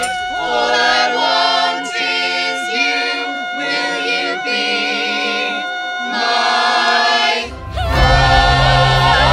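A small mixed group of women and men singing a cappella in close harmony. About seven and a half seconds in, the singing breaks off briefly and a fuller sound with a steady low bass comes in.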